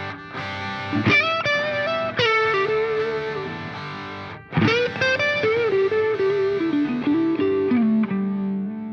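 Background music: an electric guitar melody with distortion, sustained notes with a strong new attack about four and a half seconds in, fading out near the end.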